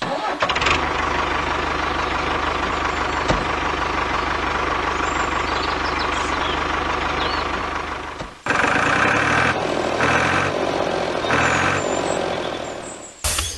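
A truck engine running steadily, then three long beeps about a second and a half apart.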